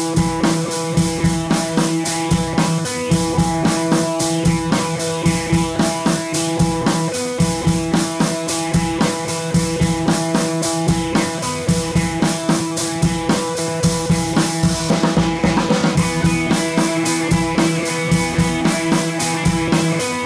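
Background music with a steady drum beat under sustained instrumental tones.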